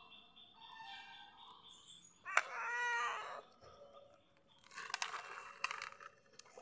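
A domestic cat meows once, a single call of about a second a little over two seconds in. Near the end, a plastic cat-food pouch crinkles as it is squeezed out over the food plate.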